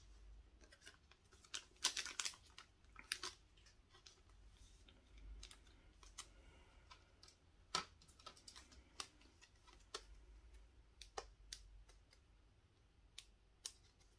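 Scattered light clicks, taps and rustles of trading cards, booster packs and packaging being handled on a hard tabletop, with the loudest cluster about two seconds in.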